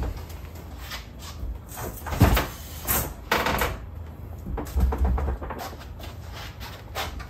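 Heavy steel Cannon gun safe being rocked and shoved across a concrete floor: scraping and grinding, with one loud thud about two seconds in and more scrapes after it.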